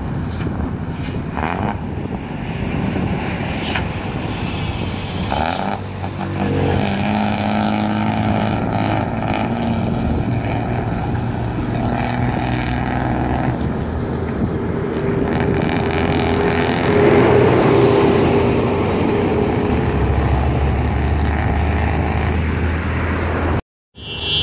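Nissan coach's diesel engine pulling under load, its note slowly rising to its loudest about two-thirds of the way through, with a high whistle over it coming and going: the 'jet engine' sound. The sound cuts out briefly near the end.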